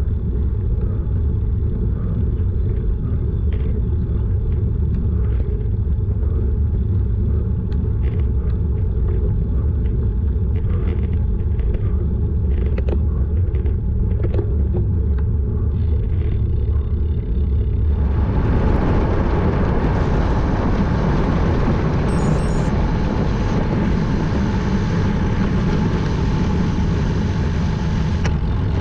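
Wind rumble on a bike-mounted action camera during a slow road-bike climb, with scattered small clicks. About two-thirds of the way through it changes abruptly to a louder, brighter, steady rush of wind as the bike freewheels downhill.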